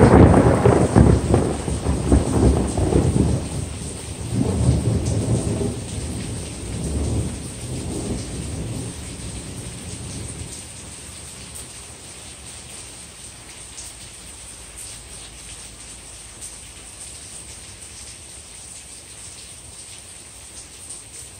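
Thunder rolling loudly at the start, rumbling on with two more swells about four and seven seconds in, then dying away after about ten seconds. Steady rain falls underneath and carries on alone once the thunder fades.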